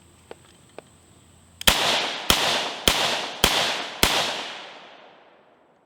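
Five rifle shots from an AR-15 firing 55-grain full-metal-jacket rounds, evenly spaced about 0.6 s apart, each with a long echo dying away. The rifle is firing with its bolt's gas rings deliberately lined up and cycles every round without a malfunction.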